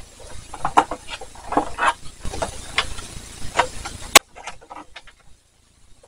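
SATA cable plugs and wiring being handled inside a desktop PC case: rustling and scraping with irregular small clicks as the plugs are pushed back onto the drives. A sharp click comes about four seconds in, then the handling goes quieter.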